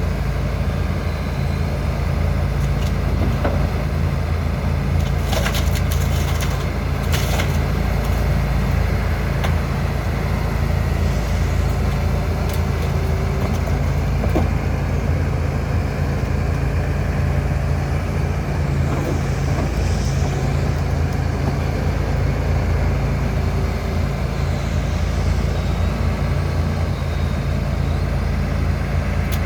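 John Deere 245G LC excavator's diesel engine running steadily under working load, with a few sharp clicks and knocks about five to seven seconds in.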